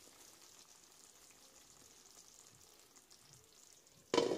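Faint, steady sizzle from a prawn curry left in a hot wok with the burner just turned off. About four seconds in it is cut by a sudden loud clatter of cookware.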